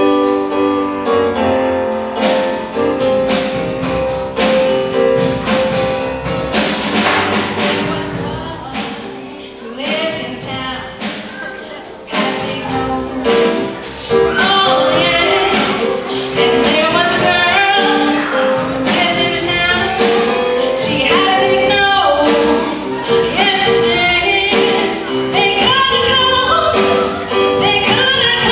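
A song: held instrumental chords open it, and from about ten seconds in voices sing over the accompaniment.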